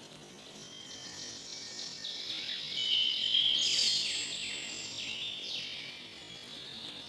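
Several small birds chirping and singing together, many quick overlapping chirps and short whistled notes. They grow busier and louder toward the middle, then thin out.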